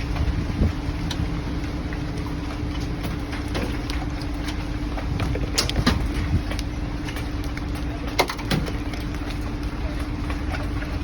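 Hailstones striking a vehicle's body and glass from inside the cabin: scattered sharp knocks, a cluster a little before 6 s and a loud one just after 8 s, over the vehicle's steady low hum.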